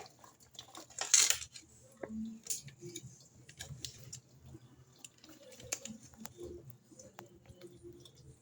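Electrolux 14 kg washing machine in its wash cycle: water and wet clothes sloshing and splashing in the tub, with scattered clicks and a faint low hum, and a brief louder splash about a second in.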